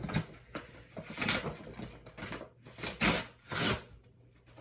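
A mail package being torn and pulled open by hand: a run of irregular rustling, ripping and scraping bursts that die down near the end.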